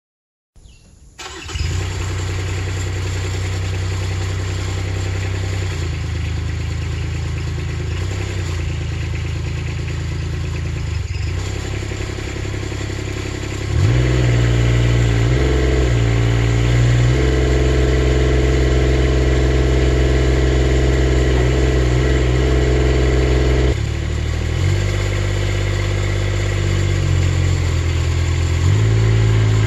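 Skylift Mini-Derrick's engine starting up about a second in and settling into a steady run. About 14 seconds in it gets louder and its pitch shifts several times as the hydraulics are worked, moving the boom. It eases back a little near 24 seconds.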